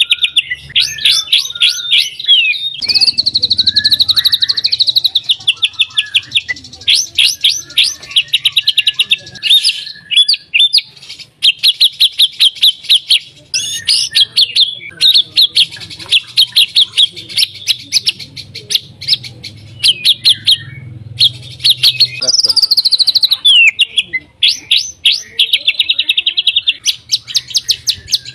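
White-rumped shama (murai batu) singing a loud, fast song of rapid trills and rattling runs of repeated notes, broken now and then by sweeping whistles and short pauses.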